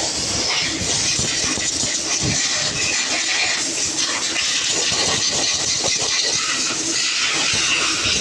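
Steady machinery noise with a strong hiss, dotted with faint clicks and knocks of metal engine parts being handled.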